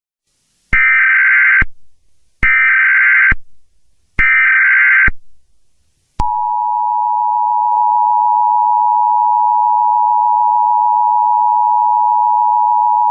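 Emergency Alert System tones: three short, loud bursts of SAME header data, about a second each and evenly spaced, then from about six seconds in the steady two-tone attention signal.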